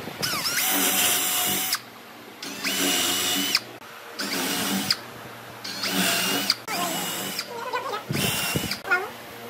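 Power drill with a depth-stopped twist bit boring holes into the edges of wooden pieces, run in six short bursts, each starting with a rising whine that then holds steady.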